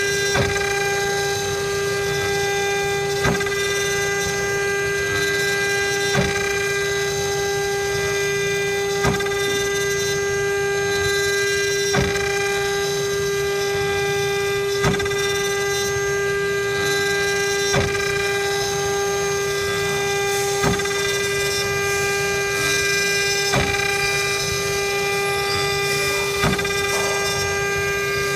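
CNC router spindle running with a steady high-pitched whine as its cutter carves a wooden cylinder turned on the rotary axis, with a short knock roughly every three seconds.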